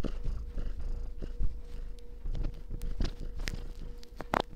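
Domestic cat purring, a continuous low pulsing rumble, with several sharp clicks and taps over it.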